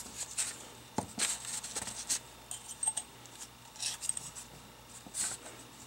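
Light metal clicks and clinks of Hydro-Gear hydraulic pump parts being handled and fitted back into the pump housing, with a sharper click about a second in.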